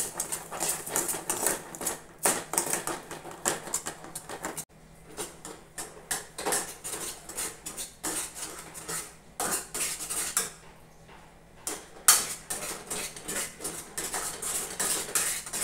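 Spatula stirring and scraping thick, sugared raw-mango pulp around a non-stick kadai in quick repeated strokes, knocking against the pan. The strokes ease off for a couple of seconds past the middle, then pick up again with one sharp knock.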